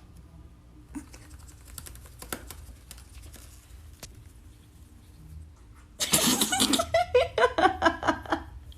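Faint scattered clicks and taps, then about six seconds in a pet parrot breaks into loud, rapid chattering calls made of short notes that bend up and down.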